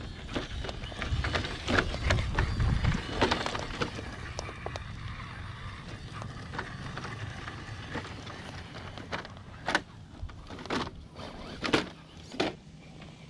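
Electric 1/10-scale RC crawler working over bare rock, with tyres scrabbling and scraping, under wind rumbling on the microphone in the first few seconds. Near the end come four sharp knocks about a second apart.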